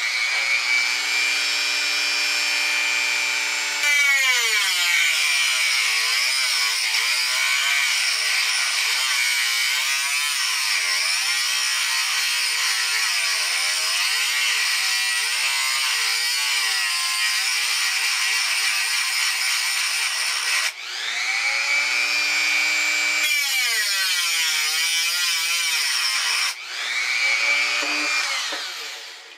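Dremel rotary tool on a flexible shaft with a cut-off wheel, spinning up and then grinding grooves into a threaded bar, its pitch wavering as the wheel bogs under load. About 21 and 27 seconds in it lets off and spins back up, and it winds down at the end.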